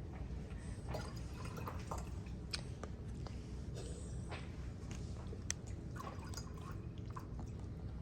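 Quiet handling noises: scattered small clicks and taps over a low steady hum.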